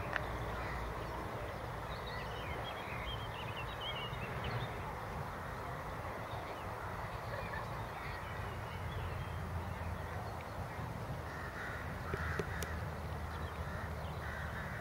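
Occasional bird calls, with a short cluster of calls about eleven to twelve seconds in and another near the end, over a steady low outdoor rumble.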